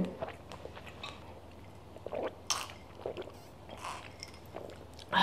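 Quiet close-up eating sounds: chewing and wet lip smacks over soft mango sticky rice, a handful of separate smacks and clicks spread through.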